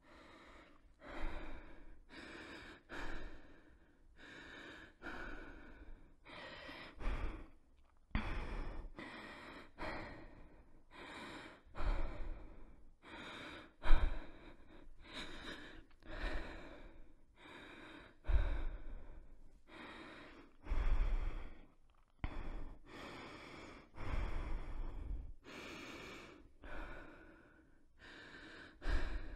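A person breathing heavily and audibly, close to the microphone: quick in-and-out breaths about once a second. The breaths vary in strength, and the loudest comes about halfway through.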